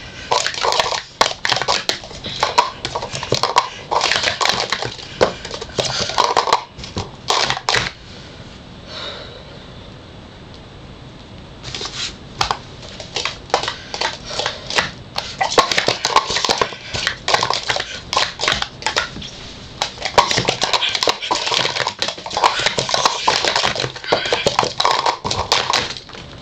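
Plastic sport-stacking cups clattering as they are stacked up and brought down at speed, in fast runs of light clicks. There is a quieter stretch of about three seconds about a third of the way in.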